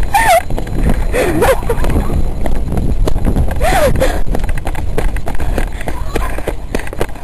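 Running footfalls and thuds of a handheld camera being carried at a run, over a low rumble on the microphone, with a few high-pitched shrieks from young voices, about a quarter, one and a third, and nearly four seconds in.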